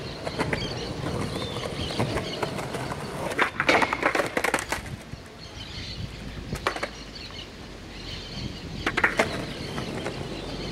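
Skateboard wheels rolling on rough concrete. About three and a half seconds in comes a rapid cluster of wooden clacks and slaps as the board hits the ground, and there are single clacks again later on, once near two-thirds of the way through and once near the end.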